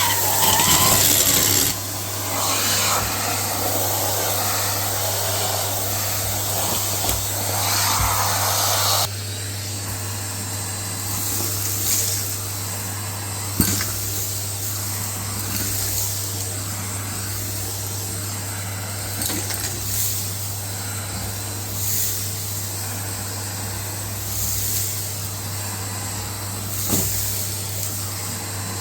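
Numatic Hetty tub vacuum cleaner running and sucking up a dry, crunchy dirt mix through a hose tool, with crackling and rattling of debris. About nine seconds in it settles to a steadier airflow sound, broken by a few sharp clicks.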